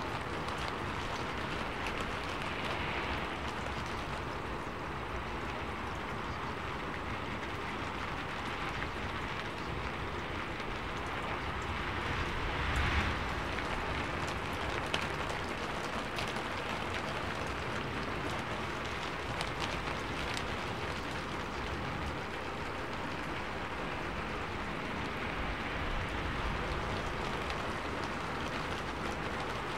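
Steady rain-like noise with faint pattering ticks: the masking track of a subliminal affirmations recording, with no words to be heard.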